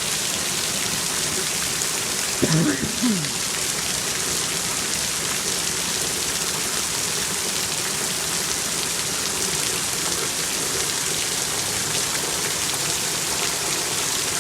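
Heavy rain pouring down in a steady, even hiss. About two and a half seconds in, a brief call in two parts falling in pitch rises above it.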